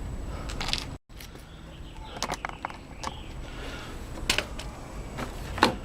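Light handling noises of reassembly work: a few scattered clicks and taps of small parts and tools over a steady low hum. The sound drops out completely for a moment about a second in.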